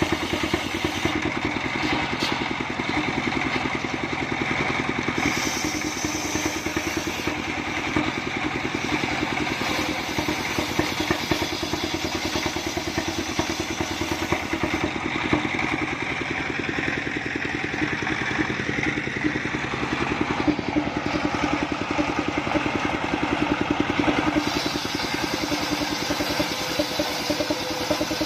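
Portable circular-saw sawmill running, its single-cylinder diesel engine chugging with rapid even pulses while the blade rips lengthwise through a coconut-palm trunk, with a steady whine from the saw.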